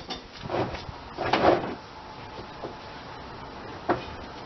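Handling noises from a tire on a wire-spoke wheel rim: dull thumps and rubbing as the rubber tire is pushed and shifted on the rim, loudest about a second and a half in, then a single sharp knock near the end.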